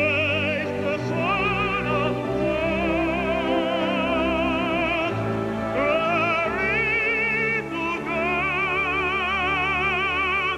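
Operatic solo singing over an orchestral accompaniment, with long held notes sung with a wide vibrato and a short break for breath about halfway through.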